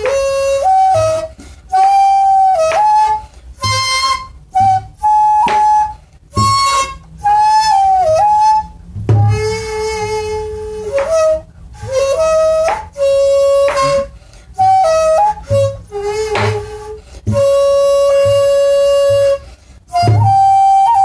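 Daegeum, the large Korean transverse bamboo flute, playing solo in the jungmori movement of a daegeum sanjo. Its notes are held and bend or slide in pitch, broken by short pauses for breath.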